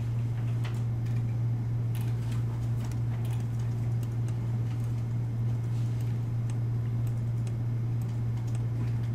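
Scattered light clicks and ticks of a computer mouse and keyboard being worked, over a steady low hum.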